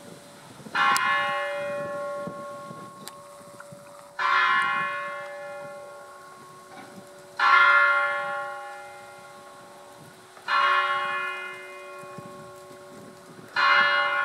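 A church bell tolling slowly: five strokes about three seconds apart, each ringing on with many overtones and fading before the next.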